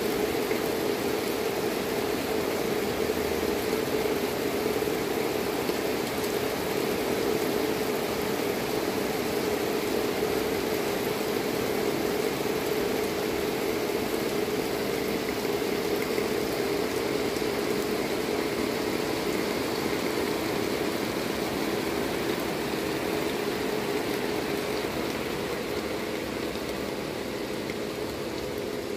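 Heavy downpour: a steady hiss of rain pouring onto pavement and parked cars, easing slightly near the end.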